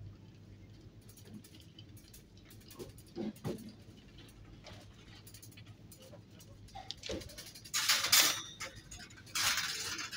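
Handling noise: scattered clicks and knocks, then two louder rustling scrapes near the end, over a low steady hum.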